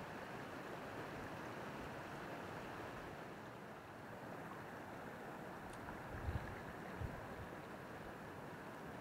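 Small mountain stream running over rocks, a steady rushing. A few dull low thumps stand out about six and seven seconds in.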